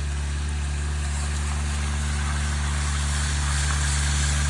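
An engine running steadily at a constant speed, an even low hum that grows slightly louder toward the end.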